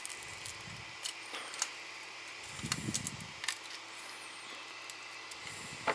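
Small scattered clicks and snaps of 3D-printed plastic being worked by hand as support material is picked off a printed part, with a soft rumble of handling about halfway through, over steady background hiss.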